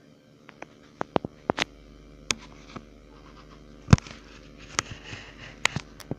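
Scattered sharp clicks and knocks from handling the wires and the metal case of a military 12 V battery, with one heavier thump about four seconds in and some rustling after it, over a faint steady hum.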